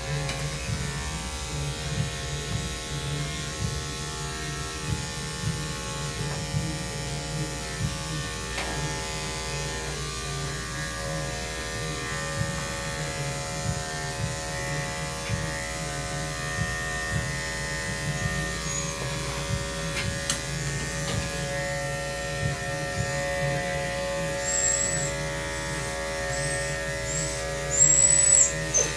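Corded electric dog-grooming clippers running with a steady hum as they shave matted hair from a dog's paw pads. A few brief high squeaks come near the end.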